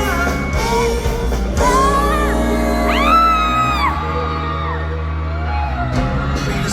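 Live pop-rock band playing a passage between sung lines in a large hall, with high rising and falling screams or whoops from the audience over it.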